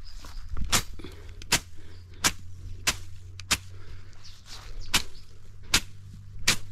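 Hand slasher swung through tall grass in sharp, regular swishing strokes, about eight in a row, roughly one every 0.7 seconds, with a short pause near the middle.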